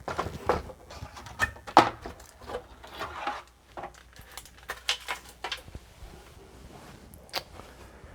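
Irregular clicks, taps and knocks of hands handling the opened plastic case and parts of a Commodore 64.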